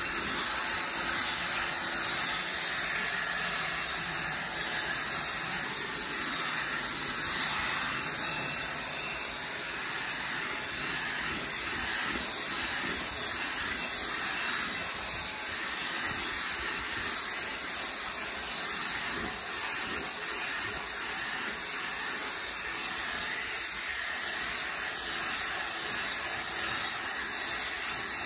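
Cordless drill running a brush attachment, the bristles scrubbing lathered fabric cleaner into a cloth car seat with a steady whirring scrub. This is the agitation stage of the cleaning, before the seat is extracted.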